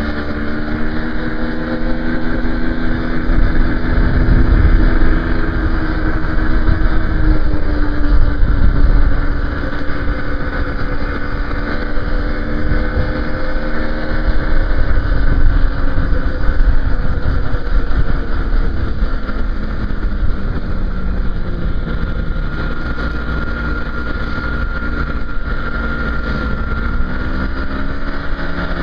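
Engine running with its pitch gliding up and down, over a loud low rumble.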